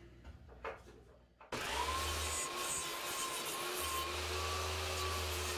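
A table saw switched on about a second and a half in, its motor running with a steady whine while a pine board is pushed at an angle across the barely raised blade to cut a shallow cove, the first pass of the chip rail's inside radius. A deeper hum comes and goes as the blade bites into the wood.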